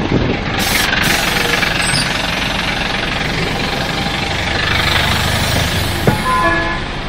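Karosa B931 city bus's Renault MIHR diesel engine idling at a stop, heard at the door and on board. A hiss comes about a second in, and near the end a click followed by a short beeping tone.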